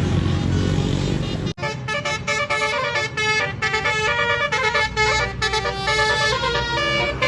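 Tour bus's basuri (telolet) multi-tone musical horn playing a fast tune of stepped notes, beginning after a sudden break about a second and a half in; before that, the running bus engine and outdoor noise.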